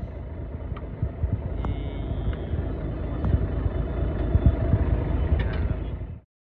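Steady low rumble of a fishing boat's engine and the sea, with wind buffeting the microphone in irregular low surges and a few faint clicks; it cuts off suddenly about six seconds in.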